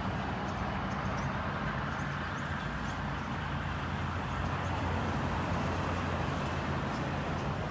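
Steady traffic-like noise: a low, constant engine hum under a wide wash of noise, with a few faint ticks.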